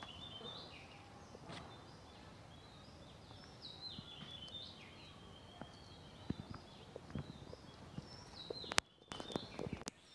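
A bird calling repeatedly, each call a falling note that levels off, coming every second and a half or so. A few sharp clicks near the end.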